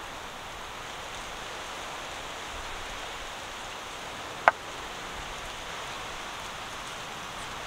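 A small clay bowl set down among other clay bowls, one sharp ringing clink about four and a half seconds in, over a steady outdoor hiss.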